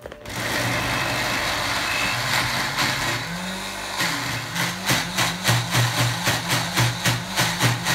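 Electric blender grinding raw spice-paste ingredients (shallots, garlic, ginger, turmeric, candlenuts): the motor starts and runs steadily, then about halfway through begins pulsing regularly, about three times a second.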